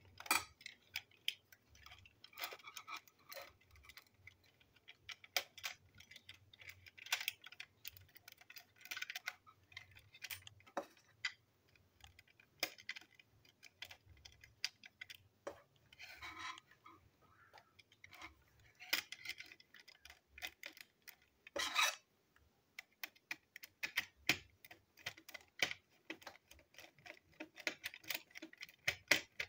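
Irregular small clicks, taps and scrapes of a plastic toy train cattle car being handled and pulled apart by hand, with a few longer scraping sounds midway and a screwdriver working a chassis screw near the end.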